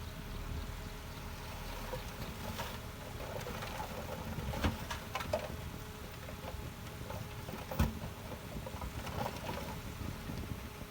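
Heavy earthmoving machinery running steadily with a low rumble, with a few sharp clanks, the loudest about eight seconds in.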